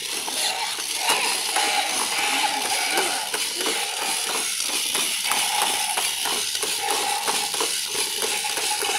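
Battery-powered walking toy gorilla running: its small motor and plastic gears whir steadily, with a run of quick clicks as the mechanism works the limbs.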